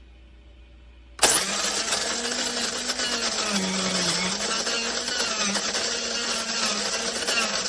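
Cuisinart DBM-8 electric burr coffee grinder switching on about a second in and running steadily: a loud motor whine with a slightly wavering pitch over a grinding rush.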